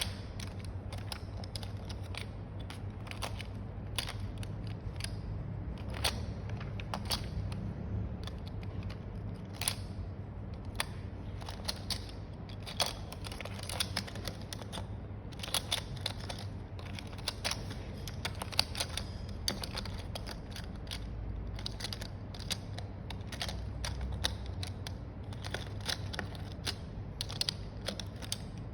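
Irregular clicks, taps and rustles of packaging and parts being handled during an unboxing, over a steady low hum.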